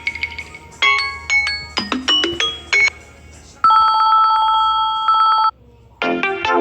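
Samsung Galaxy A12 ringtones playing one after another: a short bell-like melody played twice, then a steady electronic telephone-style trilling ring lasting about two seconds, and after a short pause another ringtone begins near the end.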